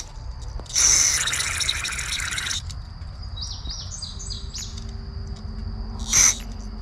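A hiss lasting nearly two seconds, and a short second hiss near the end. In between, a bird chirps a quick run of high notes in the background.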